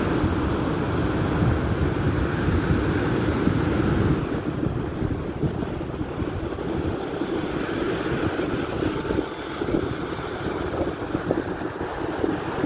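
Wind buffeting the microphone over the steady wash of sea surf, with the rumble heaviest in the first four seconds.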